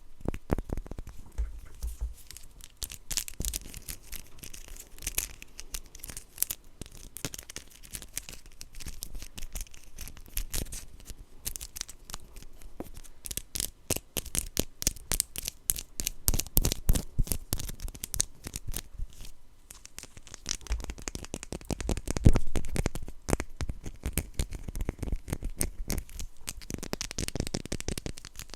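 Blind-box packaging torn and crinkled by hand: a dense, continuous run of crackles, scratches and rustles, loudest about three-quarters of the way through.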